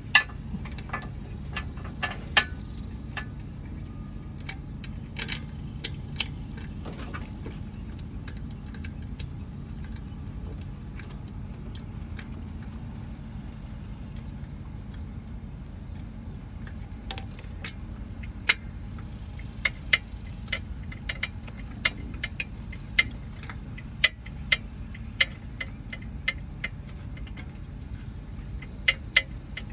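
Socket ratchet clicking as the AC compressor's 12 mm mounting bolts are tightened, with single sharp metallic clicks in an uneven run that thickens in the second half. A steady low hum runs underneath.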